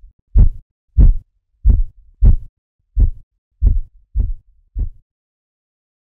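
Korotkoff sounds: the tapping of turbulent blood flow through the artery as a blood pressure cuff deflates. There are about eight dull taps, roughly one and a half a second, growing fainter and stopping about five seconds in. That stop marks the diastolic pressure (phase five).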